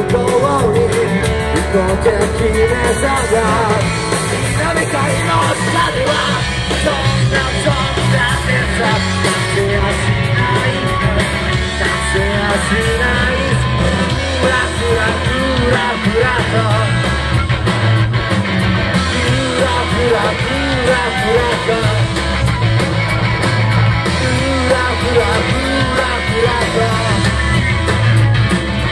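Live rock band playing loudly: electric guitar, bass and drums with a male singer.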